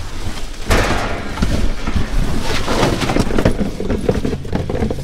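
Cardboard shoe boxes and flattened cardboard being shifted and handled: rustling and scraping, with small knocks and clicks throughout.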